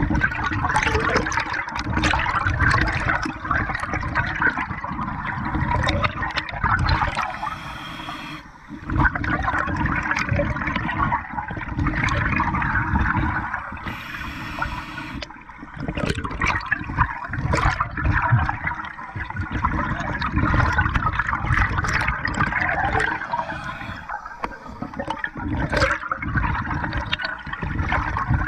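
Scuba regulator breathing underwater: long exhalations of bubbling and gurgling, broken a couple of times by a short hissing inhalation.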